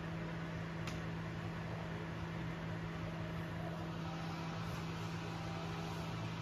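A steady low mechanical hum over a faint even hiss, with a single faint click about a second in.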